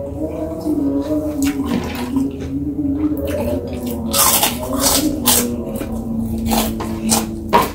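Close-miked wet chewing and mouth sounds of someone eating rice with side dishes, with sharper crunchy bites from about halfway through. A steady low humming tone that wavers slightly in pitch runs underneath.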